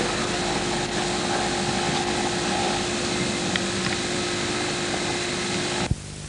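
A diesel engine running steadily: a constant hum with a heavy hiss over it. It drops away abruptly for a moment near the end.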